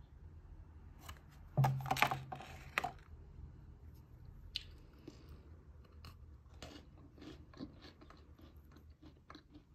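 Biting into a chocolate-and-almond-coated Pocky biscuit stick: a loud crisp crunch about a second and a half in, then steady chewing with many small crackly crunches.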